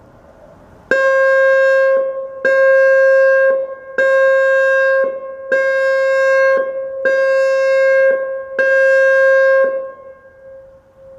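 ASC E-Class electronic outdoor warning siren sounding a pulsed tone for its monthly test: six steady, same-pitched blasts, each about a second long and repeating every second and a half, the last one trailing off in an echo.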